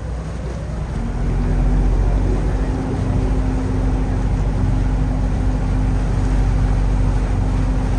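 A river ferry's engines running steadily with a low drone, heard from on board; about a second in they get louder and a steady hum joins in.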